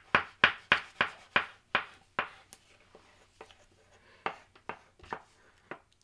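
Crayon scribbling fast on paper in quick back-and-forth strokes, about three a second. After about two seconds the strokes thin out and grow fainter.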